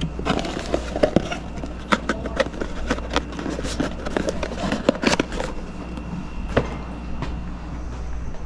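A small cardboard gift box being handled and its flap folded shut: scattered light taps and scrapes for about five seconds, then they stop. A low steady hum runs underneath.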